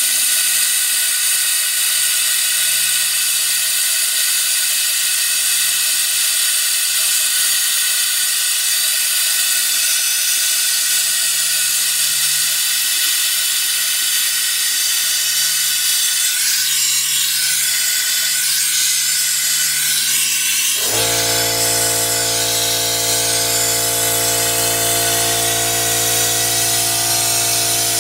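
Compressed shop air hissing steadily through an air-powered venturi coolant evacuation tool, drawing the car's cooling system down into vacuum for a leak test before refilling. About 21 seconds in, a steady low machine hum joins the hiss.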